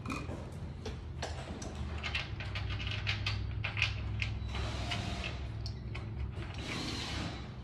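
Irregular clicks, taps and short scrapes of small hardware being handled, over a steady low hum.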